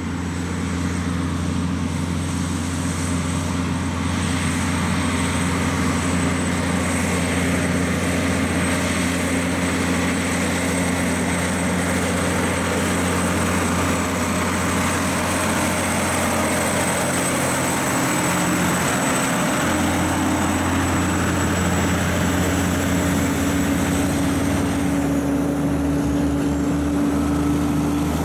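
Heavy diesel truck engines pulling under load as heavy-haulage trucks with machinery on low-loaders climb past, a steady deep drone. A faint high whine rides over it and dies away a few seconds before the end.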